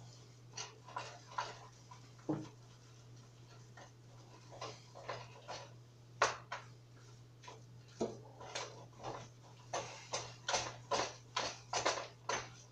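Irregular clicks and taps of kitchen utensils against a pot, sparse at first and coming thick and fast in the last few seconds, over a steady low electrical hum.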